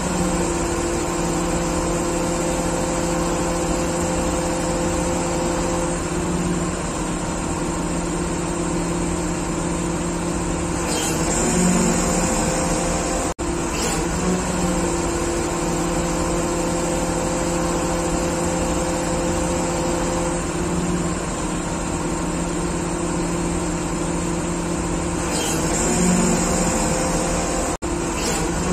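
XCMG QY25K5A truck crane's diesel engine running steadily with a held hum while the crane works, speeding up briefly twice, about eleven seconds in and near the end.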